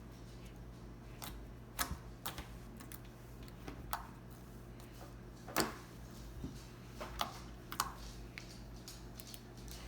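Fluffy slime being handled, giving irregular sharp pops and clicks, the loudest a little past halfway.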